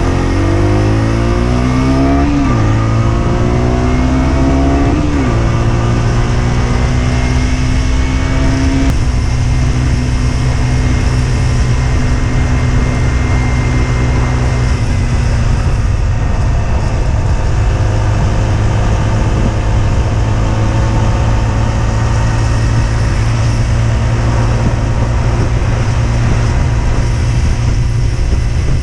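Husqvarna Svartpilen 125's single-cylinder engine accelerating through the gears: the revs climb and drop twice within the first five seconds or so as it shifts up, then climb once more and settle into a steady cruise. Wind and road noise run underneath.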